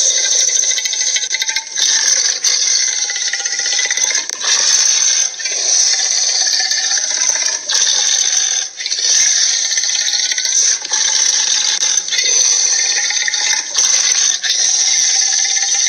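Allosaurus sound effect: a string of harsh, raspy dinosaur growls and roars, each a second or two long, separated by brief breaks.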